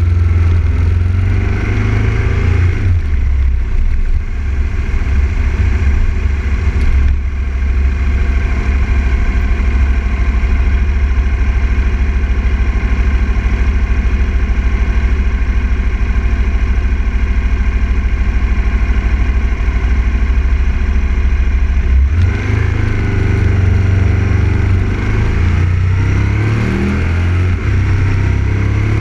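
Aprilia RSV Mille R's 998 cc V-twin heard close up from the front fairing, running at low, steady revs for most of the stretch. Near the end it pulls away, the pitch rising and dropping again as it changes up through the gears.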